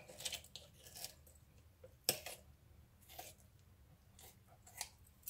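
Kitchen shears snipping through raw chicken: a few faint, irregular snips and clicks, the sharpest about two seconds in.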